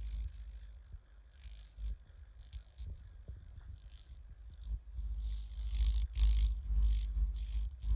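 Homemade sci-fi sound effect: a pulsing low hum under a hiss that cuts in and out, with faint ratchet-like clicking. The hum grows louder about five seconds in.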